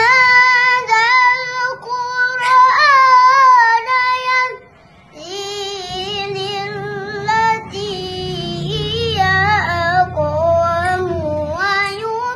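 A young boy's high voice chanting Qur'an recitation in a melodic tilawah style, drawing out long ornamented notes. A short pause for breath comes about five seconds in, and after it the melody sits lower and wavers more.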